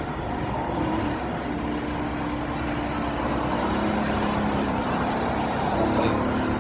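Steady motor-vehicle noise, like road traffic or an engine running nearby, with a low hum that shifts a little in pitch.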